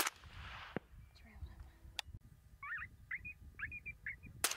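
Sharp rifle crack with a short echo at the start and another crack near the end, with a run of short high yipping calls, typical of coyotes, in between.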